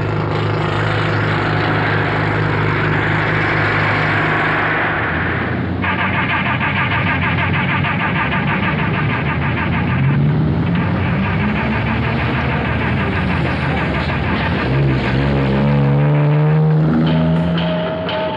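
Dense road traffic noise: car and truck engines running together, with steady droning tones early on and rising glides in pitch about three-quarters of the way through.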